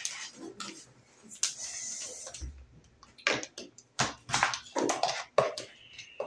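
Hard plastic toy building pieces clicking and clattering as they are handled and pressed together: a string of short knocks, coming thicker in the second half.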